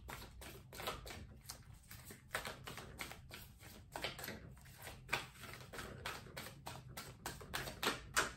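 Deck of tarot cards being shuffled by hand: a steady run of soft, irregular card clicks and flicks, a few each second.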